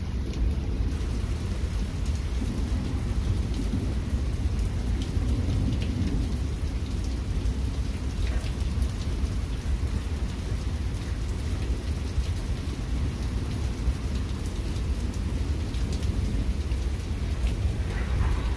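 Heavy rain falling steadily in a thunderstorm, with a low rolling rumble of thunder underneath and scattered drips ticking.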